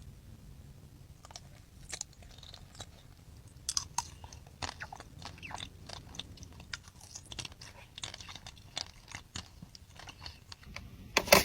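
A person chewing a pastry close to the microphone: small, irregular mouth clicks that start about four seconds in and go on to the end.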